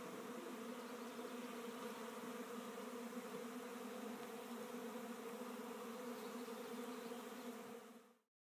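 A swarm of thousands of bees buzzing, a steady hum that cuts off abruptly near the end.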